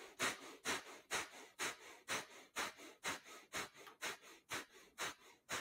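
Breath of fire: rapid, forceful exhales through the nose in an even rhythm, about two a second, each followed by a softer inhale.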